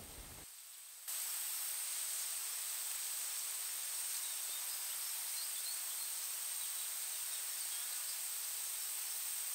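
Forest insects, such as cicadas or crickets, droning steadily as a high-pitched hiss that starts abruptly about a second in, with a few faint chirps over it.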